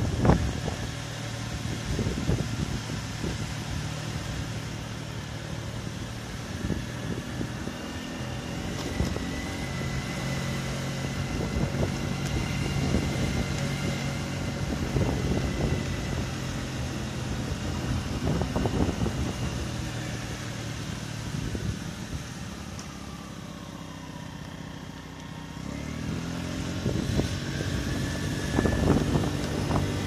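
A vehicle's engine running while driving, its pitch slowly rising and falling. Wind buffets the microphone in gusts at the very start and again towards the end.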